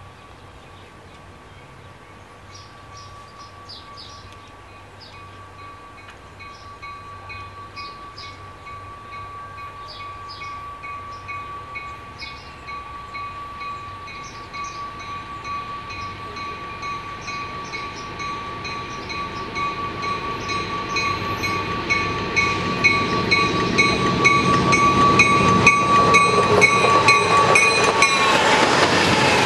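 A grade-crossing bell rings steadily with evenly repeating strikes. Under it, the GE diesel locomotives of a Canadian National freight train approach, rumbling louder and louder. The lead units pass close near the end, just as the bell stops.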